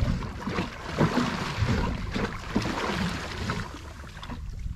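Water splashing at the surface beside a small boat's hull as a hooked porgy is brought alongside, with wind rumbling on the microphone; the splashing dies down near the end.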